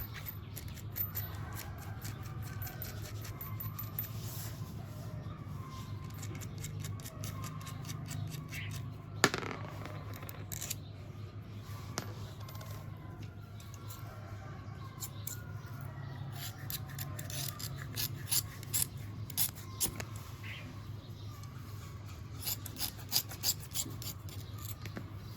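Scattered sharp clicks and small handling and rubbing noises of close-up hand work on a small object, over a steady low hum. One louder click comes about nine seconds in, and quick runs of clicks follow near the end.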